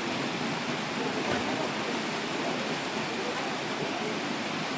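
Steady rushing of flowing floodwater.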